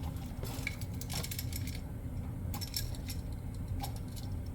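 Scattered light metallic clicks and clinks as a GFCI outlet and its wires are handled and fitted into the terminals.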